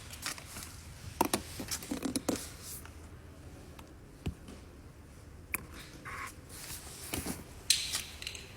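Handling noise: scattered clicks, knocks and scrapes, with a cluster of knocks early and a sharper knock near the end.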